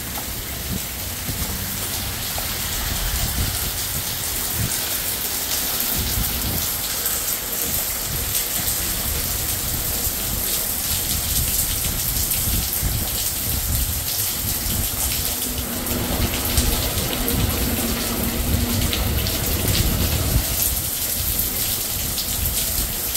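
Heavy rain pouring steadily, a dense hiss of drops on pavement, walls and roofs, with an uneven low rumble underneath.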